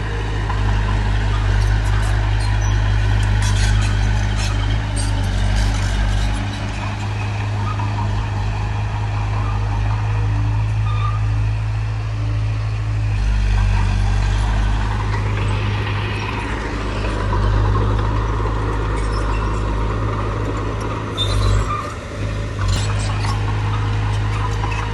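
Diesel engine of heavy earthmoving equipment running steadily under work, its low engine note shifting a few times.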